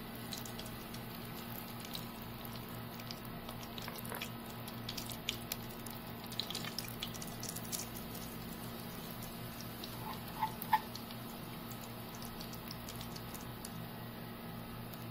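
Samosas frying in hot oil in a deep pressure-cooker pot: a faint sizzle with scattered small pops and crackles, busiest from about four to eight seconds in. A few short sharp ticks come a little after ten seconds.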